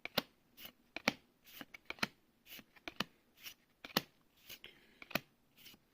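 Magic: The Gathering trading cards being handled and flipped through by hand: a string of irregular short snaps and swishes of card stock, about two a second.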